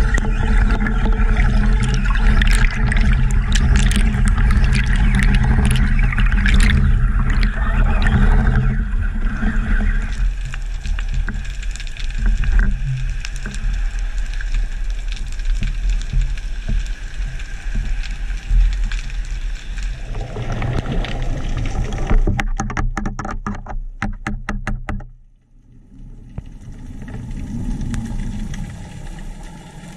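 Underwater sound through an action camera's housing: a steady low rumble with crackling bubbles, easing to quieter water noise. Near the end comes a quick run of clicks, then the sound cuts off suddenly and a quieter water hush follows.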